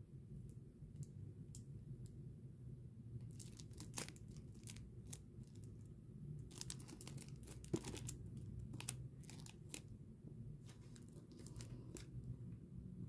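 Plastic shrink wrap and plastic sleeves crinkling in the hands: faint scattered crackles and clicks that come mostly after the first few seconds, over a steady low hum.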